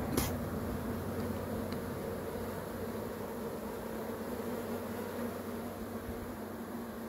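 A dense cluster of honey bees buzzing in a steady hum. A single sharp click sounds just after the start.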